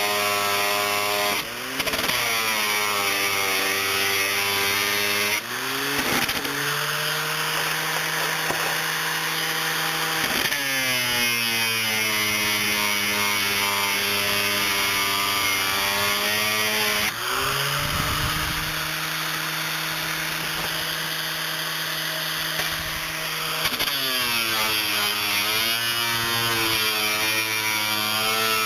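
7-inch high-speed angle grinder running continuously while removing wood from plywood boat stringers. Its motor pitch sags as the wheel bites in and climbs back when it is eased off, about five times, over a steady grinding hiss.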